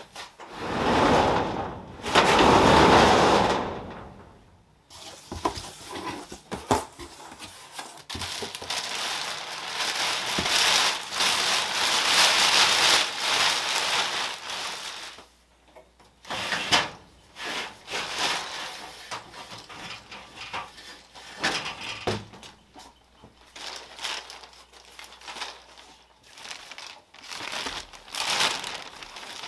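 Large plastic packing bag rustling and crinkling as it is opened out and handled, in long stretches through the middle and later part. A loud rushing sound comes first, swelling and fading over the opening few seconds.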